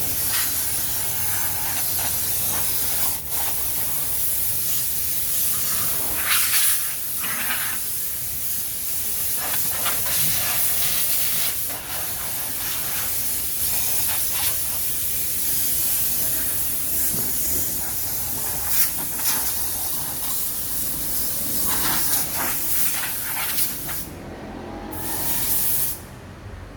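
A steady, loud hissing noise with a few short knocks scattered through it; the hiss drops away near the end.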